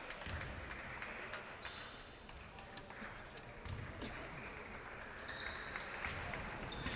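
Basketball game sounds on a wooden gym floor: the ball bouncing in a few scattered thumps, with short high sneaker squeaks about one and a half seconds and five seconds in.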